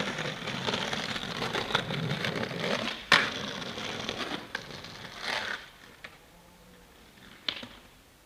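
Skateboard wheels rolling on rough asphalt, a steady gritty clatter, with a sharp clack of the board about three seconds in and a lighter click near the end as the rolling fades away.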